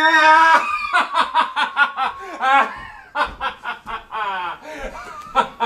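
A person's long held scream breaks off about half a second in. It gives way to a fast run of stage laughter: short 'ha' bursts, each falling in pitch, with a brief pause about three seconds in.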